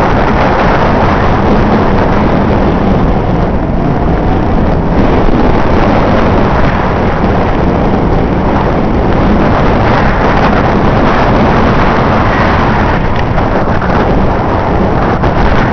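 A loud engine running steadily, an unbroken mechanical rumble.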